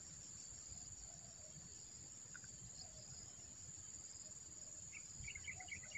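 Faint, steady high-pitched insect chirring with low outdoor rumble; about five seconds in, a rapid run of short chirps joins it.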